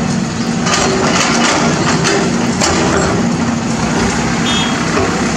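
Caterpillar 320D excavator's diesel engine running with a steady drone, while its steel bucket scrapes and crunches through soil and broken concrete rubble, loudest about a second in.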